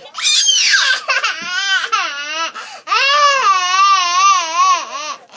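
A young child crying hard: a falling cry, then wavering sobs, then one long wavering wail of about two seconds in the second half. The child is upset after a squabble over toys.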